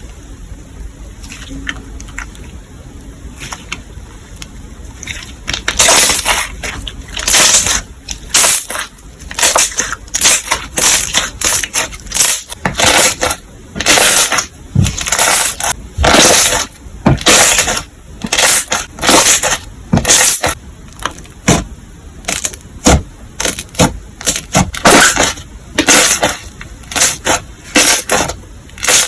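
Gummy slime squeezed and pressed by hand: loud squishes about once a second, after a quieter start with a few faint clicks.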